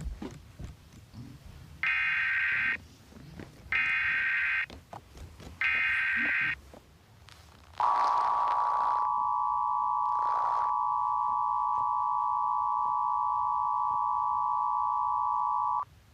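Emergency Alert System header and attention signal: three short bursts of warbling digital data tones, then the steady two-tone attention signal held for about eight seconds before it cuts off.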